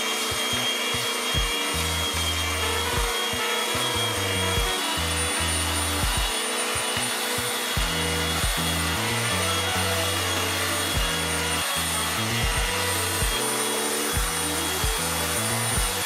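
Handheld belt sander running and sanding a wooden board: a steady motor whine over the rasp of the belt on the wood. Background music with a steady beat plays underneath.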